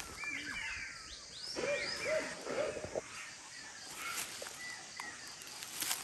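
Monkeys screeching in a fight, faint and distant: a string of short, rising-and-falling shrieks, thickest in the first half, with a couple more about four seconds in.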